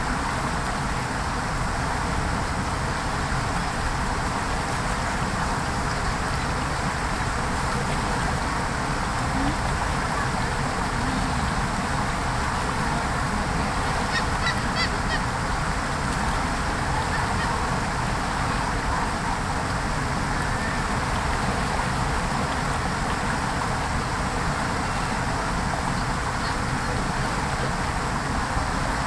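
Creek water running steadily over stones. About halfway through, a gull gives a short run of quick calls.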